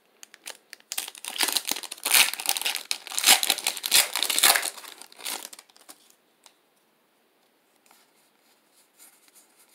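Pokémon booster pack's foil wrapper being torn open and crinkled by hand: a dense crackling rustle for about four seconds. Near the end, a few faint clicks as the cards are handled.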